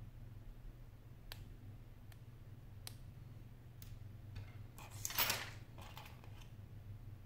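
Small handling sounds of a phone LCD panel being worked with a toothpick: a few isolated ticks, then a short burst of scraping and rustling about five seconds in, over a faint steady low hum.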